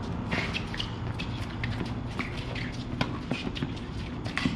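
Tennis rally on a hard court: racket strikes on the ball, the sharpest about three seconds in and again near the end, among quick footsteps and shoe scuffs.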